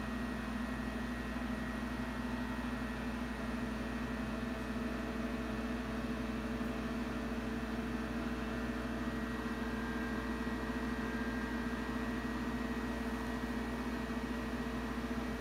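Tektronix 555 oscilloscope powered up and running, giving a steady hum and fan noise that does not change.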